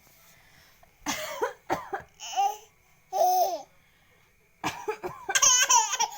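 A young child laughing in short high-pitched bursts, some of them cough-like, then a longer, louder run of laughter near the end.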